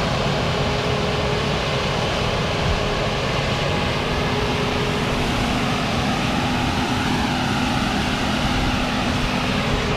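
Engine of a heavy tree-removal machine running steadily, a constant droning hum over a low rumble.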